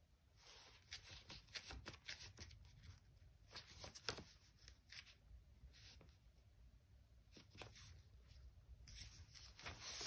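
Faint, irregular papery rustles and flicks of a hand leafing through a stack of patterned scrapbook paper sheets, one after another.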